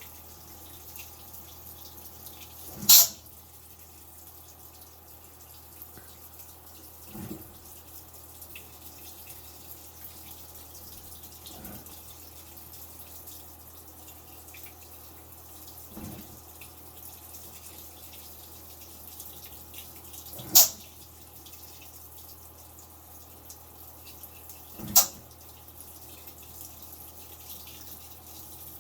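Washing machine with a steady low hum, and a short sharp knock repeating about every four seconds, three of them loud and the rest faint.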